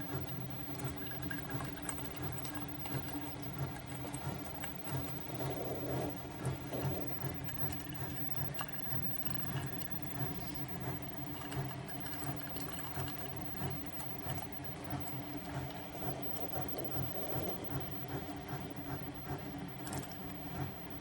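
SiFENE single-serve coffee maker's pump running with a steady buzz while it brews, liquid trickling into the cup.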